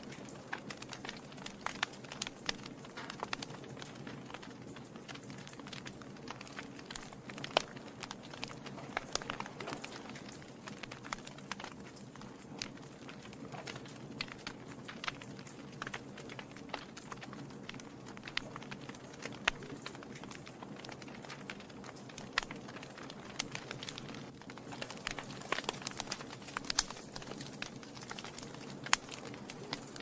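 Wood log fire crackling: irregular sharp snaps and pops over a steady low rush.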